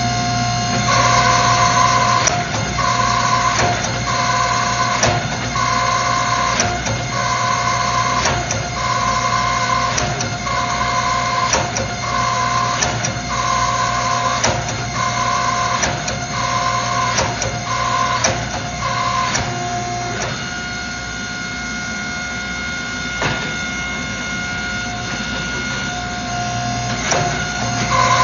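Steady low hum of shop machinery with a high-pitched beep repeating about once a second, stopping for several seconds near the end and then starting again, and scattered sharp clicks.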